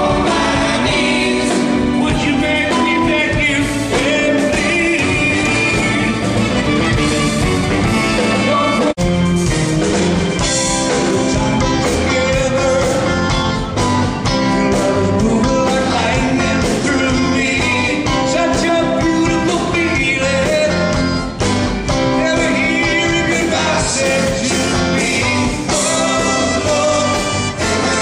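Live rock band with a lead singer, playing without pause, with a momentary dropout about nine seconds in.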